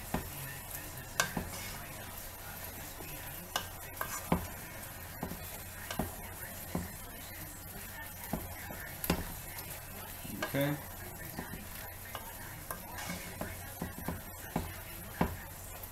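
Vegetable and tofu stir fry sizzling in a frying pan in a thickening black bean sauce, while a utensil stirs it with irregular clicks and scrapes against the pan.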